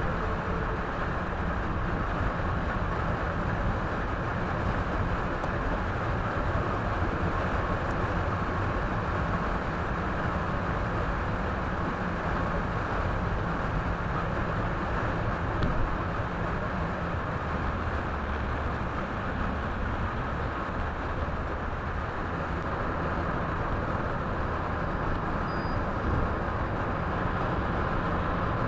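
Steady road and tyre noise of a car driving at speed, heard from inside the cabin through a windshield dashcam, with a low engine and drivetrain hum beneath. The recording is played back 1.3 times fast.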